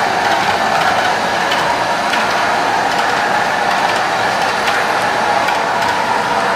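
HO-scale model freight train running along the layout track: a steady electric motor hum with the wheels rolling over the rails and faint clicks at the rail joints.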